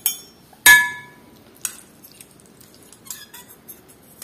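Fork and spoon clinking: one sharp, ringing clink just under a second in, then a few lighter clicks as spaghetti is twirled on the fork against the spoon.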